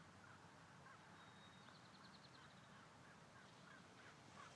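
Near silence, with faint distant bird chirps and a brief high trill about a second and a half in.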